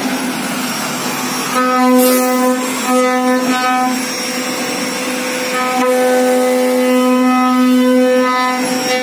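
CNC router spindle motor running as it carves wood, giving a steady pitched whine over a noisy rush. The whine wavers and breaks several times in the first half, then holds steady.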